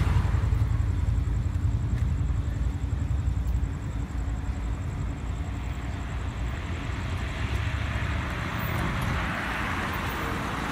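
A car passing close by, its road noise fading over the first few seconds, then steady background traffic, with another car's noise growing as it approaches near the end.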